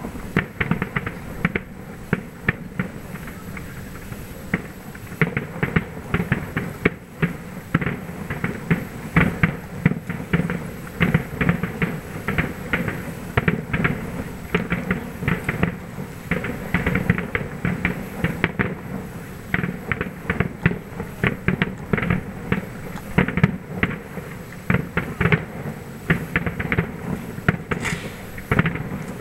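Distant aerial firework shells bursting, a rapid irregular series of sharp cracks and booms, several a second.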